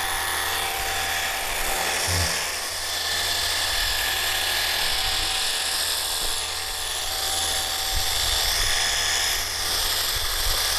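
Wosai MX-001 battery-powered pressure washer running steadily, its motor and pump whining under a fan jet of water sprayed to pre-soak a car.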